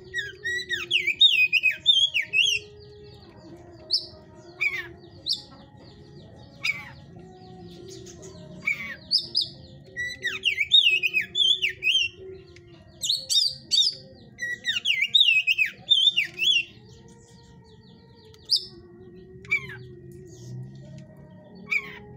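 Oriental magpie-robin (kacer) singing in fast, loud bursts of varied, sharply sweeping whistled phrases, with single sharp notes and pauses between the bursts. This is the song of a bird in 'hot' condition: aggressive and in fighting form.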